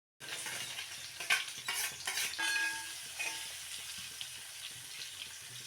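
Food sizzling as it fries in a pan while it is stirred with a utensil. A few scrapes come in the first two seconds and a short metallic ring about halfway through, then the sizzling carries on steadily.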